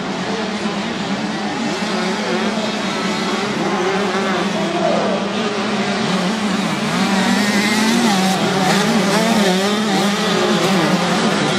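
Several 125cc motocross bike engines racing past, their pitch rising and falling as the riders work the throttle and shift through corners. The sound grows somewhat louder toward the end.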